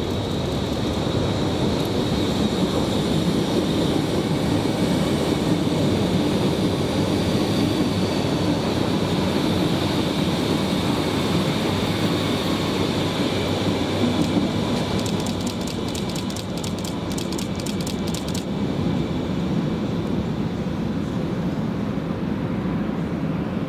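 Berlin U-Bahn IK-series small-profile train running past on elevated viaduct track, with a steady rumble of wheels on rail and a high electric motor whine. A quick run of clicks from the wheels comes about two-thirds of the way through.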